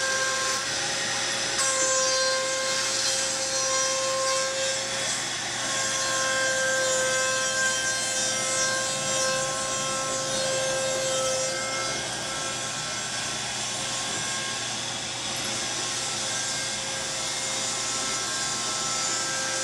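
CNC router spindle running steadily with a surfacing bit cutting across a mulberry slab to flatten it. It makes a constant high whine over the rasping hiss of the bit shaving the wood.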